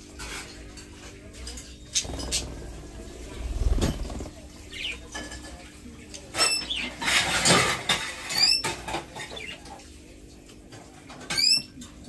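Pet parakeets, budgerigars and a rose-ringed parakeet, giving several short, sharp chirps, mostly in the second half, amid rustling, scratching and pecking around a seed dish, with a louder rustle about four seconds in.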